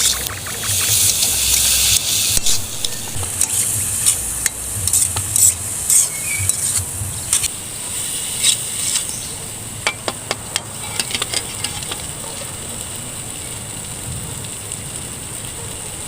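Vegetables sizzling as they fry in a pan, with a utensil clicking and scraping against the pan as they are stirred. The clicks thin out after about eleven seconds, leaving a steady sizzle.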